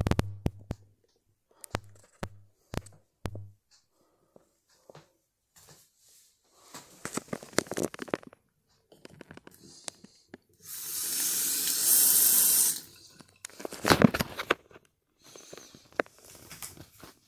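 Bathroom sink faucet turned on, water running steadily for about two seconds before stopping, amid handling clicks and rustling; a loud crackling rustle comes just after the water stops.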